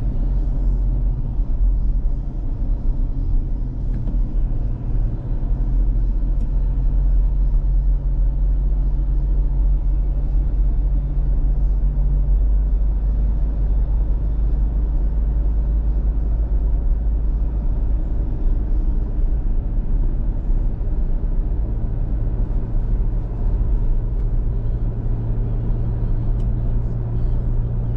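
Steady low rumble of engine and road noise inside a Toyota Fortuner's cabin as it drives along a highway. A low drone fades about midway and comes back near the end.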